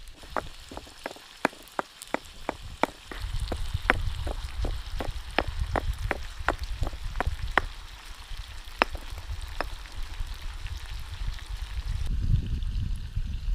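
Stone pestle pounding chili paste in a stone mortar: sharp knocks about three a second, thinning out and stopping after about ten seconds. A low rumbling noise runs underneath from about three seconds in.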